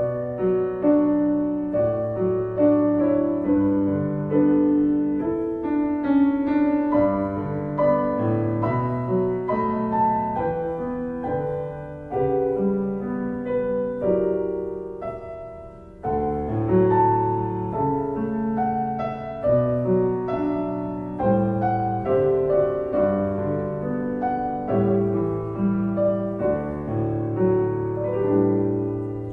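Solo piano music, slow and gentle, with notes struck about once a second and a brief pause about halfway through.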